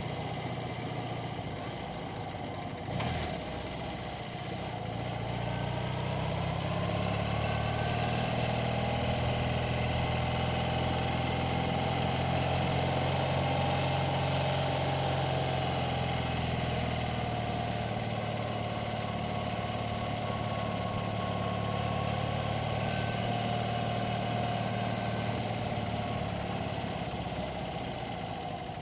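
1982 BMW 980cc air-cooled flat-twin motorcycle engine running, heard close up from on the bike. There is a click about three seconds in, then the revs rise over a few seconds and hold steady.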